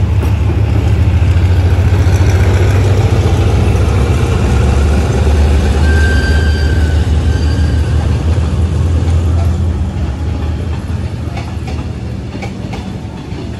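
Diesel-electric locomotive of a passenger train passing, its engine running with a loud low drone that fades after about ten seconds. The coaches follow, their wheels clacking over the rail joints near the end.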